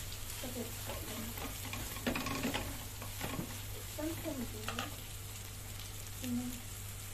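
Corned beef and sliced onions sizzling in a wok, with a steady frying hiss, while a wooden spatula stirs and scrapes across the pan a few times.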